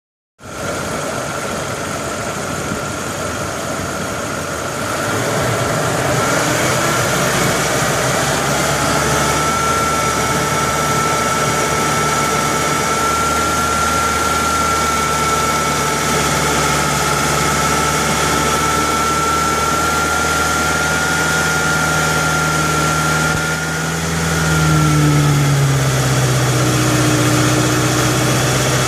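Engine running steadily with a high, steady whine over it. It gets louder about five seconds in, and the pitch shifts downward about 24 seconds in.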